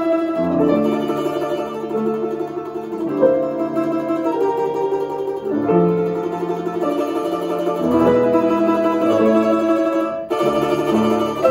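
Domra playing a melody with grand piano accompaniment, the notes changing every half second or so, with a short break between phrases near the end.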